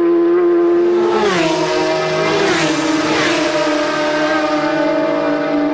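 Several racing superbikes passing close at full throttle in quick succession. Each engine's high, steady note drops in pitch as it goes by.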